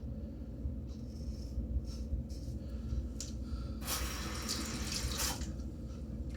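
Bathroom sink tap running for about a second and a half, a little past the middle, over a steady low background hum.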